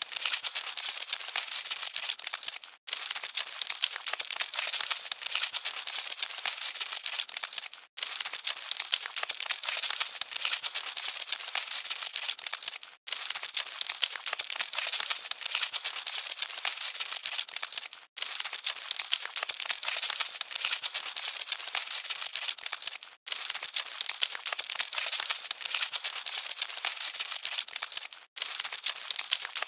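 Dense, fine crackling and scratching of cockroaches scuttling, with no low tones, broken by a brief dropout about every five seconds where the short recording loops.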